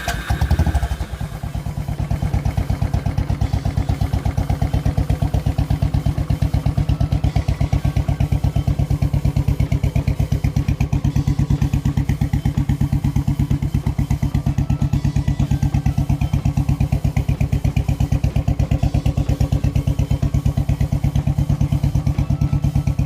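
Royal Enfield single-cylinder four-stroke motorcycle engine just started, with a louder burst about half a second in, then idling with a steady, even beat. It is running in neutral to warm up the oil before an oil change.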